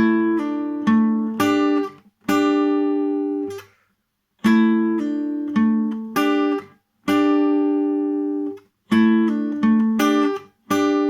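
Guitar riff played with hybrid picking: pairs of strings plucked together with pick and middle finger, with pull-offs that drop the pitch of ringing notes. The same short phrase is played twice, with brief muted gaps between groups of notes.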